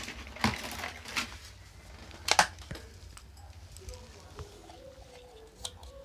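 Scattered clicks and rustles from handling a digital multimeter on a workbench, the loudest about two and a half seconds in, as the meter is picked up and its rotary dial turned to measure voltage.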